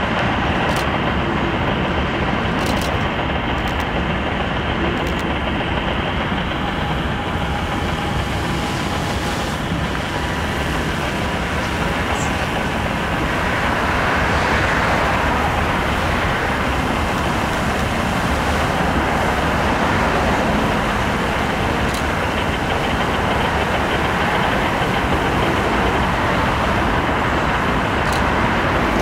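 Steady hum of urban road traffic, with a few faint clicks and a slight swell about halfway through.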